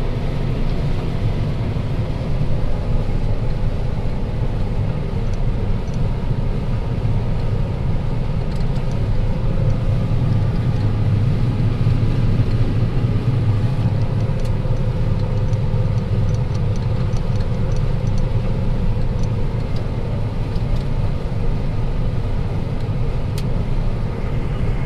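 A combine harvester's engine running steadily under load as it harvests soybeans, a constant deep rumble with faint steady mechanical tones above it.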